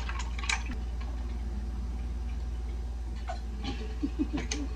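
A steady low electrical-sounding hum with a fine, even pulse, under a few sparse, sharp clicks of utensils against dishes as eating begins.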